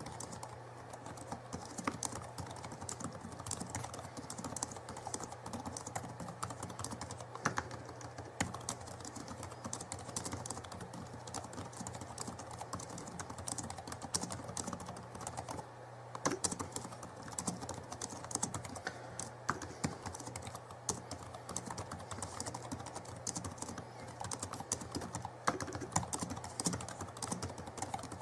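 Continuous rapid, irregular light clicking and tapping, close to the microphone, like fingers typing on a keyboard, over a low steady hum.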